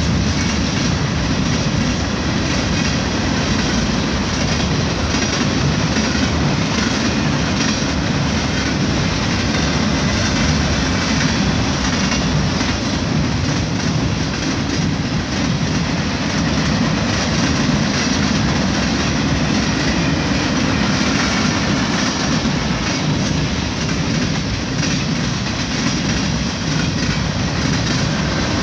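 Long mixed freight train's cars (boxcars, tank cars, covered hoppers) rolling past close by. The steel wheels make a loud, steady noise on the rail, heaviest in the low range, with light regular clicks.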